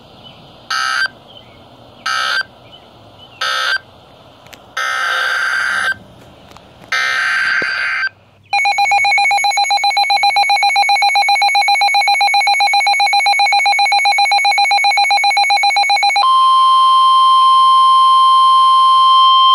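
Emergency Alert System tones: three short digital data bursts (the end-of-message code), then two longer data bursts of a new alert header. Then comes a loud fluttering attention tone, which about 16 seconds in switches to a steady single tone near 1 kHz, the NOAA Weather Radio alert tone.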